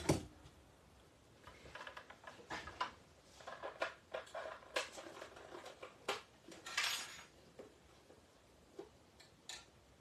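Card-making supplies handled out of view as a fresh sheet of paper is fetched: a sharp click at the start, then scattered light clicks, clinks and knocks, with a longer rustle about seven seconds in.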